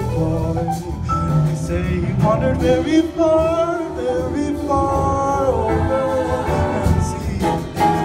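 Mixed-voice vocal ensemble singing in close harmony through microphones and a PA, held chords moving from one to the next.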